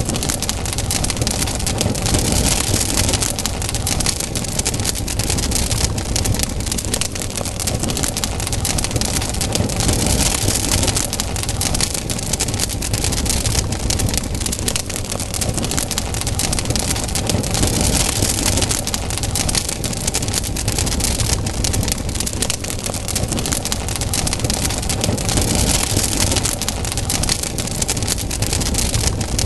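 Wood campfire burning, with dense crackling and hissing that swells every several seconds over a steady low rumble.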